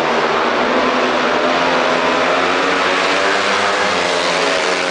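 Several speedway motorcycles racing at high revs, their single-cylinder methanol engines running together as a loud, steady, wavering drone.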